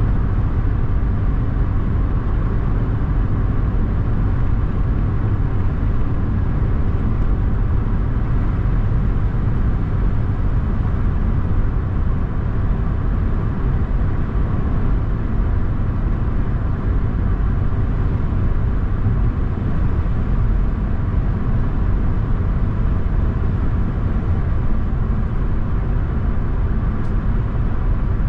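Car driving at a steady speed: a continuous low rumble of engine and tyre road noise, unchanging throughout.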